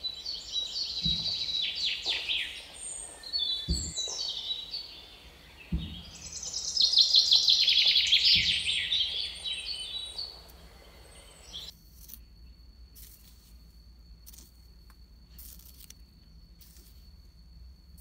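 Many birds chirping in a dense run of quick high calls, which cuts off suddenly about two thirds of the way through. After that there is only faint scratching and ticking from a small metal tool digging in sand.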